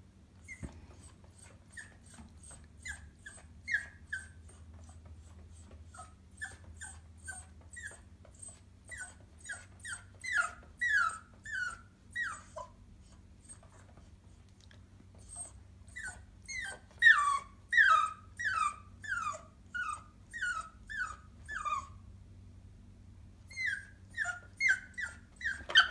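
A King Charles spaniel puppy whimpering and whining over and over, short high cries that each fall in pitch, about one or two a second, with a couple of brief pauses. It is the anxious whining of a puppy left up on a chair, afraid of the height.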